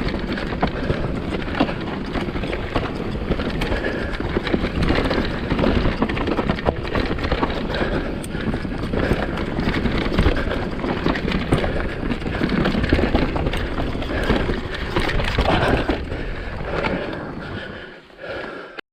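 Mountain bike riding down a dirt trail: steady tyre noise over the ground with constant clicking and rattling from the bike, fading in the last couple of seconds.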